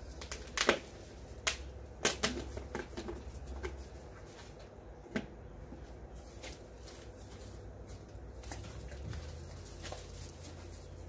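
Scattered sharp knocks and clicks from a wooden bottle rack feeder and its milk bottles being bumped and handled while fawns feed. The knocks come in a cluster in the first couple of seconds and once more around five seconds in, over a low steady rumble.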